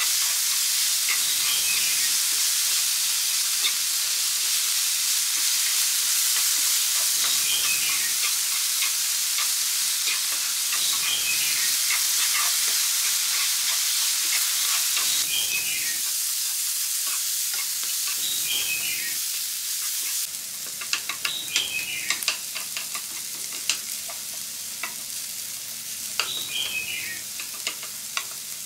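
Grated carrot, potato and onion sizzling in a nonstick frying pan, with a wooden spatula stirring and scraping through them every few seconds. The sizzle drops quieter about two-thirds of the way through, leaving sharper little crackles.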